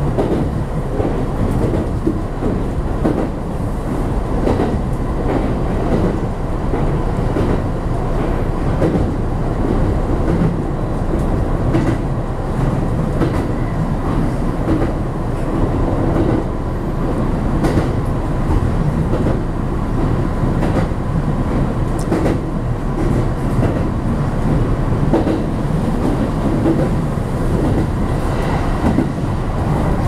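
Electric commuter train running steadily, heard from inside the front car: a continuous low rumble of wheels and running gear, with scattered wheel clicks over the rails, as it crosses a steel truss bridge and runs on onto plain track.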